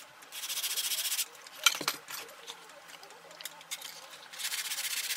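Sandpaper rubbing in very fast strokes over a small hand-held part, sped up to double speed. It comes in two bouts with a pause between them, and a short knock falls early in the pause.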